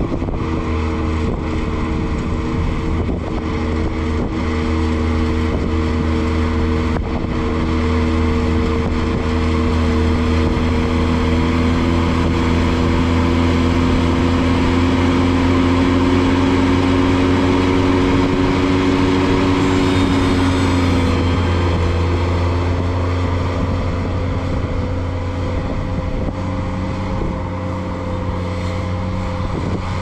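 Ventrac 4500Z tractor running with its KX480 snowblower throwing snow, a steady engine-and-blower drone that grows louder as the machine comes close about halfway through and eases off as it moves away. The pitch of the drone shifts about two-thirds of the way through.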